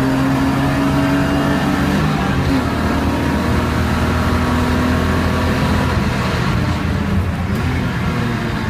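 BMW E36 328i race car's straight-six engine at high revs under full throttle, heard from inside the cabin over heavy road and wind noise. After about six seconds the engine note fades as the car slows for the next corner.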